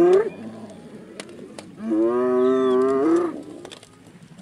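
A large animal's long mooing calls. One call cuts off just after the start, and a second comes about two seconds in and lasts about a second and a half. Each holds a steady pitch, then rises at its end.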